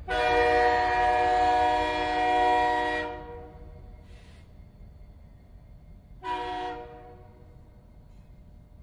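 Train horn sounding a chord of several tones: one long blast of about three seconds, then a short blast about six seconds in.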